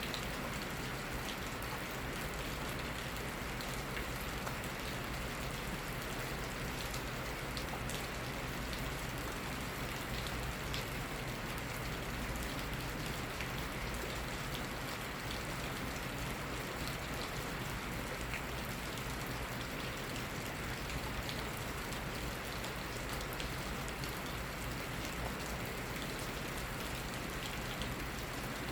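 Steady rain falling, a constant patter with scattered individual drops ticking.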